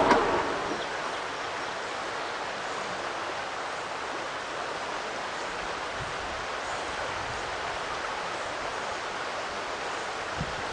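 Shallow river flowing over a riffle, giving a steady, even rushing of water. A brief knock is heard right at the start.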